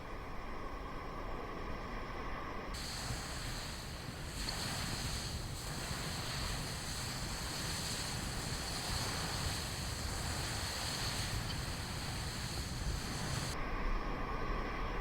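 Strong wind on the microphone and surf breaking on a beach, a steady rushing noise. About three seconds in it turns brighter and hissier, and near the end it drops back to a duller hiss.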